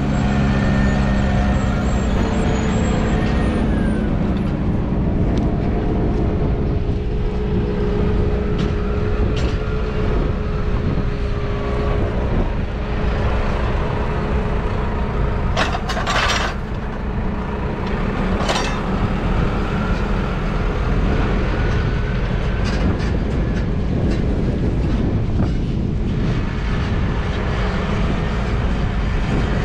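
Massey Ferguson farm tractors' diesel engines running steadily, with a constant whine over the engine note. A couple of sharp metallic clanks come about halfway through.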